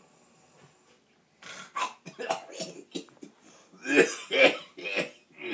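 A man waking with a start, coughing and clearing his throat in a run of short, loud sputters that begin about a second and a half in.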